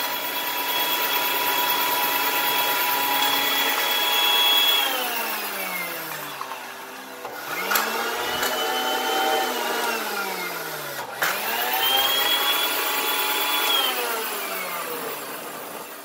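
1969 Hoover Floor-A-Matic rug and floor conditioner running, its electric motor whining as it spins the scrubbing brushes. It winds down with a falling whine about five seconds in, then spins back up with a rising whine. After a click around eleven seconds it speeds up again, and it winds down once more near the end.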